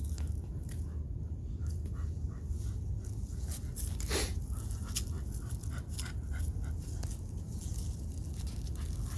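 A dog panting, with scattered light clicks and a short hiss about four seconds in, over a low steady rumble.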